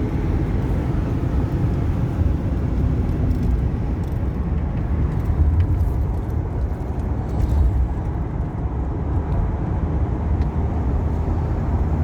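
Road and engine noise inside the cabin of a 2014 Ford Econoline E-250 van driving along: a steady low rumble, with a faint steady hum that fades out about three and a half seconds in.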